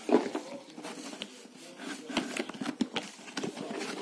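Cardboard box and packaging rustling, scraping and knocking irregularly as a keyboard is worked out of a tight-fitting box.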